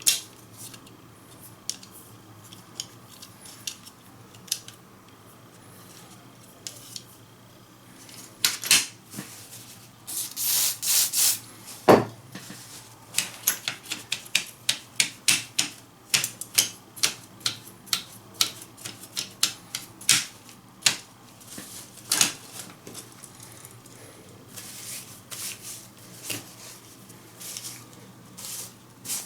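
Plastic parts of a TV remote control being handled and taken apart: irregular clicks and taps, with a stretch of scraping about ten seconds in and a sharp knock about twelve seconds in.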